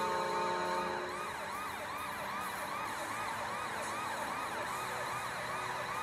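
A recorded siren, played from a computer, quickly rising and falling in pitch about three times a second, as in an arena goal celebration. A held horn tone underneath stops about a second in.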